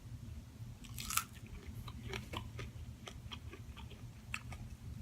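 A person biting into and chewing food, with one crisp crunching bite about a second in followed by a run of small moist chewing clicks, over a low steady hum.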